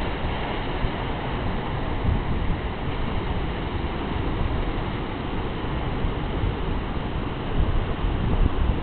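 Steady rushing wash of ocean surf breaking into whitewater at the foot of a sea cliff, with wind rumbling and buffeting on the microphone.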